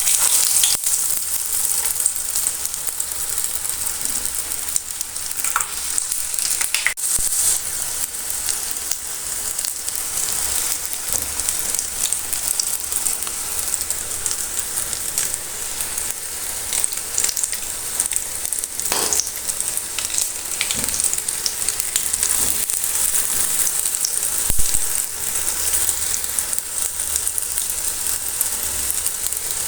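Potato-and-egg cutlets frying in hot oil: a steady sizzle dotted with small crackles and pops.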